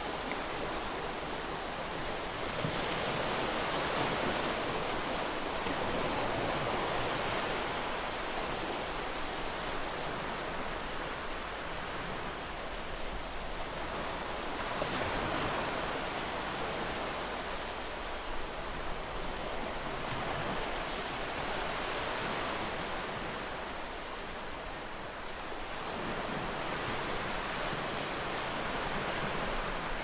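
Ocean surf breaking and washing onto a beach: a continuous rushing wash that swells and eases every few seconds as the waves come in.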